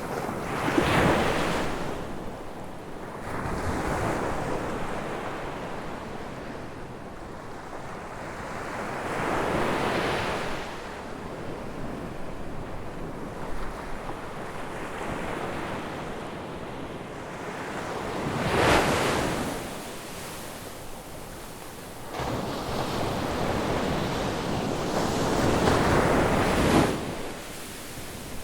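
Ocean waves breaking on a beach: a steady wash of surf with a louder wave crashing every several seconds, each swelling and fading away.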